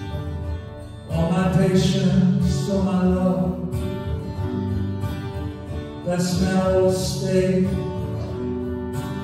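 A man singing live to his own acoustic guitar: the guitar plays alone briefly, then sung phrases come in about a second in and again about six seconds in.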